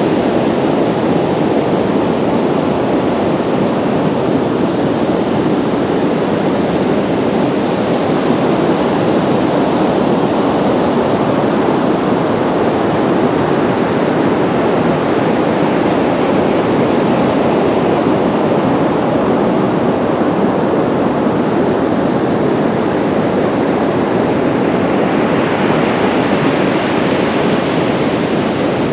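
Steady roar of sea surf breaking on a beach, with the hiss swelling higher near the end.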